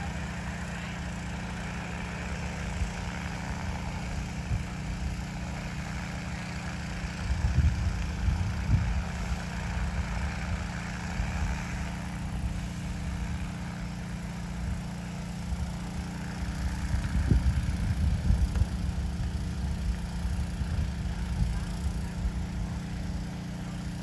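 Six-rotor DJI Agras T30 crop-spraying drone flying, its rotors giving a steady drone. Gusts of wind rumble on the microphone about 8 seconds in and again around 17 to 19 seconds.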